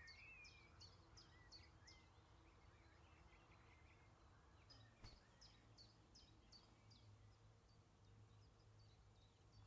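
Faint woodland birdsong: a small songbird repeats short, high, falling notes at about three a second, in two runs with a pause between them, the second starting about halfway through. A second bird warbles lower in the first two seconds, over a faint low hum.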